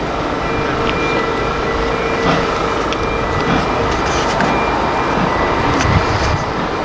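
GWR steam tank locomotive working slowly on the line, with a steady hiss and a faint held tone.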